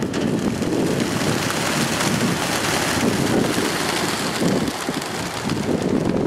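Hundreds of racing pigeons taking off at once from opened transport crates: a loud, dense, continuous flutter of wingbeats.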